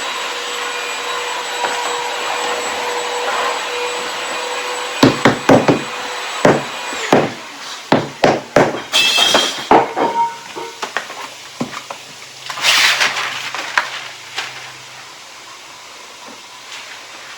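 A motor running with a steady whine and hiss, which stops about seven seconds in. Overlapping it, a series of sharp knocks and taps, loudest between about five and seven seconds in, then fewer and fainter.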